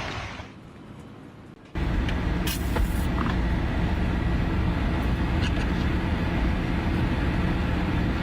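An engine running steadily with a constant low hum, cutting in suddenly about two seconds in.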